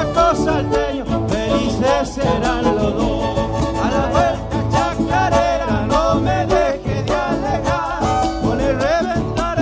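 Argentine folk band playing chaqueñada music: guitar, violin and percussion over a steady beat, with a wavering melody line on top.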